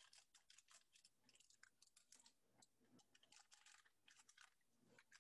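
Faint, rapid, irregular crinkling of a plastic tamarind soup mix sachet as it is handled.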